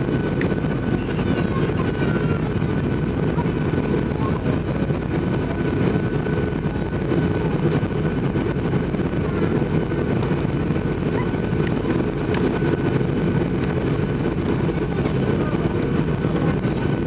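Steady cabin noise of a Boeing 737 on approach: turbofan engines and rushing airflow heard from inside the cabin over the wing, a deep even rumble with a thin steady whine above it.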